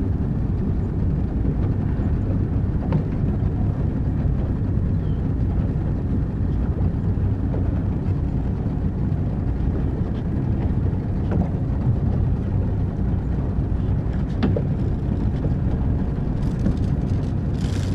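Motorboat under way: a steady low engine drone with wind and water rush, and a few light knocks.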